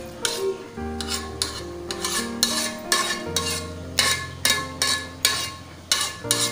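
A spoon stirring rice and broth in a metal rice-cooker pot: a run of short scraping strokes against the pot. Background music with held chords plays underneath.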